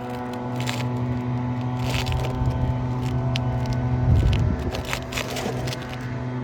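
A steady low mechanical hum from a motor or engine running, with scattered scrapes and clicks of hand work on asphalt roof shingles.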